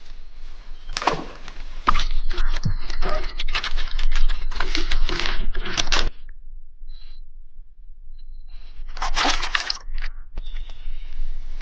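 Crunching and crackling in several close bursts, with a pause of a couple of seconds before a last loud burst near the end.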